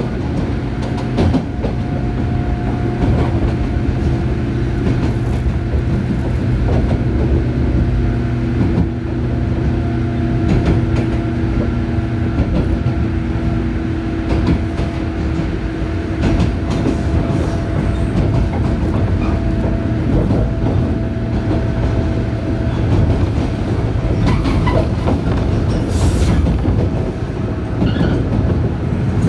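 Interior running sound in the motor car of a JR 103 series 1500 subseries electric train at speed. A steady traction-motor and gear whine sits over the wheels' rumble and clicks from the rail joints. Part of the whine drops away about twenty seconds in.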